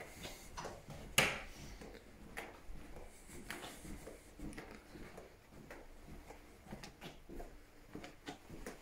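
Faint footsteps on a carpeted corridor floor at walking pace, about two a second, with one sharper knock about a second in.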